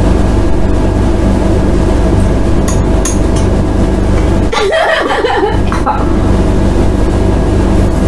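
A steady low mechanical hum runs throughout, with a woman's brief chuckle about five seconds in.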